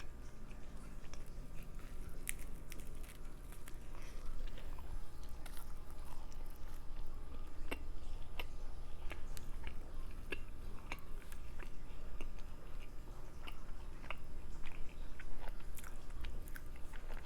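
Close-miked chewing and biting of garlic naan, with many short, irregular wet mouth clicks.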